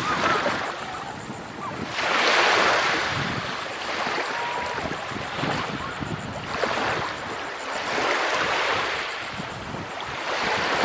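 Small waves of the Chesapeake Bay washing ashore, the surf swelling every couple of seconds, with wind on the microphone.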